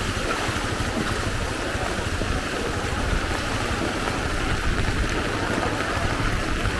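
Fast-flowing floodwater rushing steadily, with a low rumble underneath.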